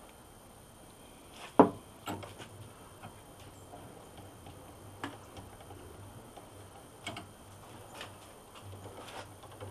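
A sharp knock about a second and a half in, then scattered metallic clicks and light clanks every second or two as a bench vise's handle is worked to turn its screw, just sprayed with WD-40 to free it up.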